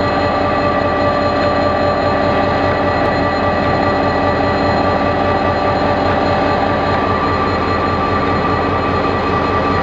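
KiwiRail DFT-class diesel-electric locomotive running slowly past a platform, a loud steady mechanical noise with several steady whining tones held over it.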